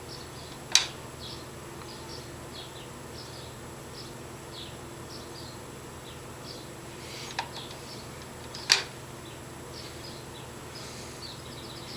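Eyeshadow applicator brushing and dabbing on a doll's eyelid: a run of short, soft scratchy strokes, with two sharp clicks, about a second in and near nine seconds in, over a steady low hum.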